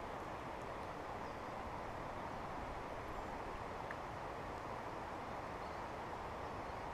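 Shallow creek water flowing over and around rocks: a steady, even wash of water sound.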